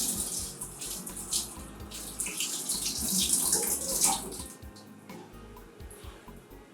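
Water pouring and splashing into a cooking pot, stopping about four and a half seconds in.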